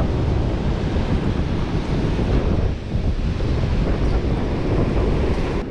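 Wind buffeting the microphone, a loud rumble, over the wash of ocean surf breaking along the beach. The rumble drops abruptly just before the end.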